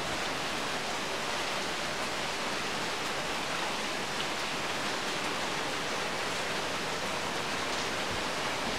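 Steady heavy rain falling, an even hiss of downpour.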